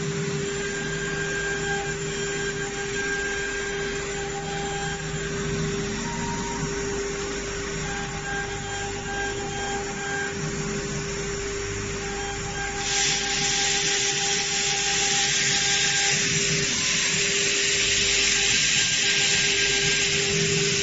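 CNC router spindle running with a steady whine while its bit engraves letters into a PVC board, short higher-pitched tones coming and going as the head moves. About 13 seconds in, the hiss of the cutting gets suddenly louder and stays so.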